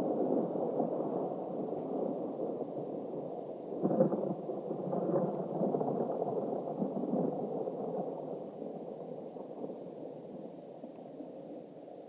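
Thunder rumbling, with a sharper crack about four seconds in and a weaker one a second later, then dying away slowly.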